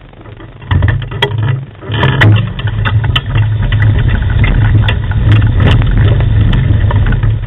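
Dog-drawn dryland rig rolling fast over a gravel trail: a loud, uneven low rumble that sets in about a second in, with frequent sharp clicks and rattles of stones and gear.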